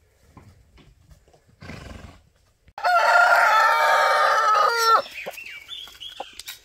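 A rooster crows once: a single call about two seconds long that drops in pitch at the end.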